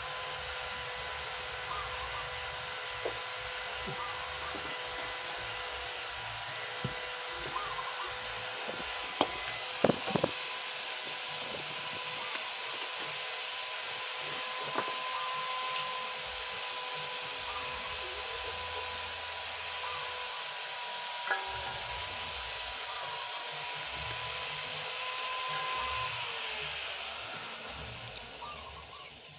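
Steady hiss with a faint high whine under it, broken by a few sharp clinks and knocks about a third of the way in and once more later, as a small LPG cylinder and its regulator fittings are handled.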